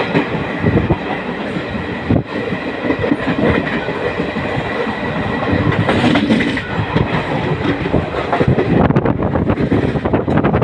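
Train running along the track, heard from aboard, with its wheels clattering rhythmically on the rails over a continuous rumble.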